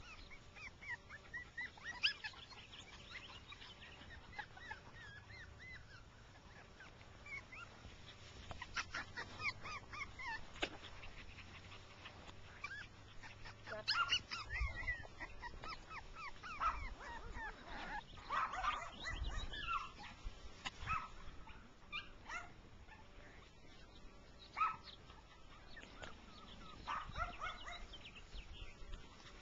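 Six-week-old Jack Russell Terrier puppies yipping and whimpering: many short, high squeaks scattered all through, some in quick runs.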